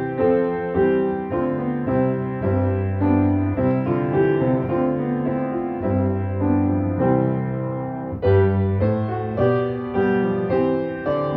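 Piano music at a slow, gentle pace: chords and notes struck every half second or so over sustained bass notes.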